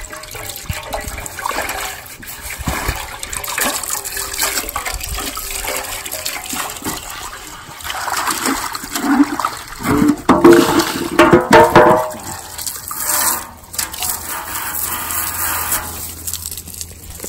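Water from a garden hose pouring into a copper cazo and splashing out over its rim, rinsing the salt, baking-soda and lime scrub out of the freshly cleaned pot. The water is loudest for a few seconds just past the middle.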